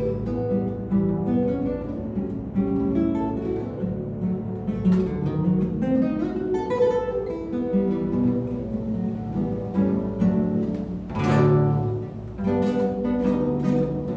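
Solo acoustic guitar playing a fingerpicked choro, a melody over moving bass notes, with a loud strummed chord about eleven seconds in.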